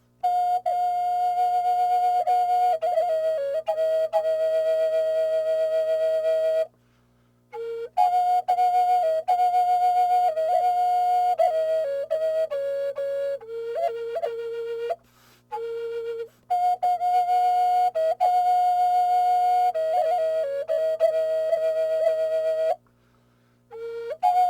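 Flute music: phrases of long held notes with quick ornaments between them, broken by three short pauses.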